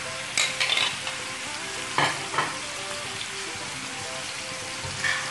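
Chicken, onion and chopped tomato sizzling in oil on a tawa, with utensils scraping and tapping as the tomatoes are tipped in and stirred. A few sharp scrapes stand out about half a second, two seconds and five seconds in.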